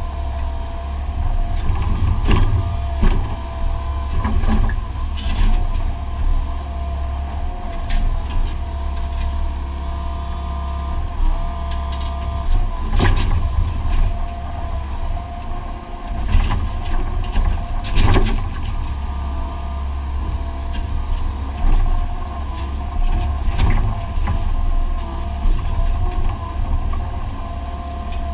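Excavator diesel engine running steadily under load, heard from inside the cab, with a steady whine over its low drone. The bucket knocks and scrapes against the ground and foundation rubble about eight times.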